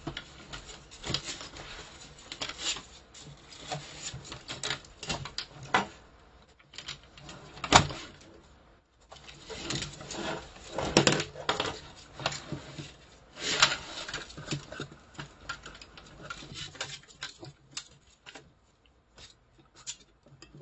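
A ferret clambering over art supplies on a desk, knocking pencils, pens and a metal pencil tin and watercolour palette about: irregular clattering and rattling, with one sharp knock about 8 s in and busier clatter around 11 and 14 s, thinning out near the end.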